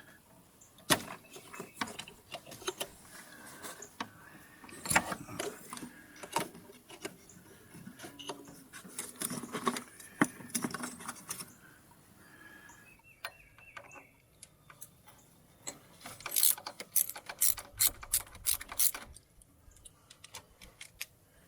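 Ratchet wrench clicking as the bolts of the fuel filter bracket clamp are loosened, among scattered clinks of metal tools, with a fast run of ratchet clicks near the end.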